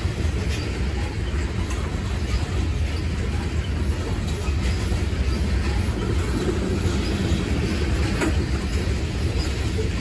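Freight train's open-top coal cars rolling past: a steady rumble of steel wheels on rail, with a few faint clicks scattered through it.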